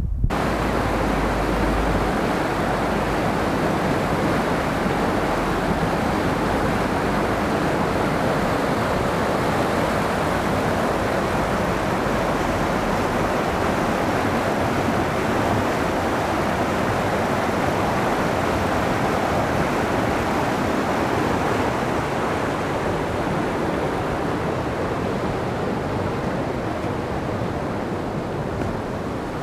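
A fast mountain river rushing over rocks and through rapids: a steady, dense roar of water, easing slightly near the end.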